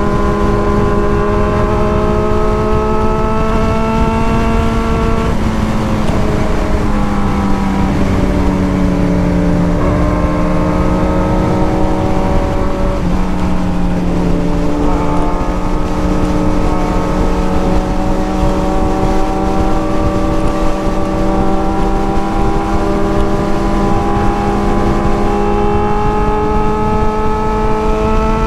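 Motorcycle engine running under way at a steady road speed, over a constant rush of wind and road noise. The engine note drops and picks up again about five, ten and fifteen seconds in, then rises slowly until it falls away at the very end.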